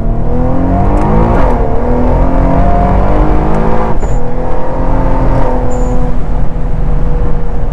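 Twin-turbo VR30 V6 of a heavily modified Infiniti Q50 Red Sport, heard from inside the cabin, pulling hard with rising pitch. The pitch dips about a second and a half in and climbs again, then falls away suddenly about four seconds in and runs steadier and lower. That sudden loss of power is what the occupants take for a throttle cut rather than the tyres losing traction.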